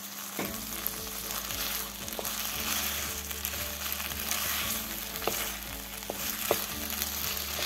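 Orecchiette and tomato sauce sizzling in a nonstick pan as they are stirred together, with a few light clicks of the utensil against the pan.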